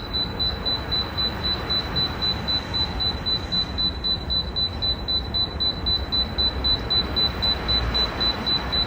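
Rapid electronic beeping at one high pitch, about four to five beeps a second without a break, over a steady hiss.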